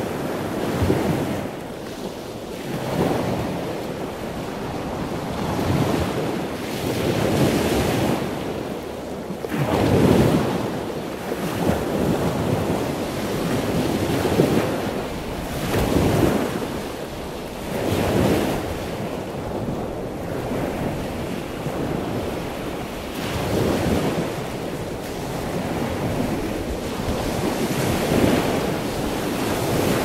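Ocean surf: a continuous rushing of waves that swells and eases again about every two seconds.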